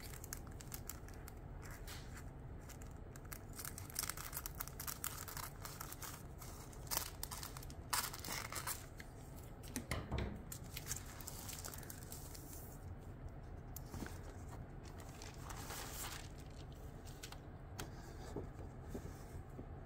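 Clear cellophane bag crinkling and tearing as it is handled and cut open with scissors, with a paper decal sheet slid out of it. Scattered short rustles and snips, a few louder ones around the middle.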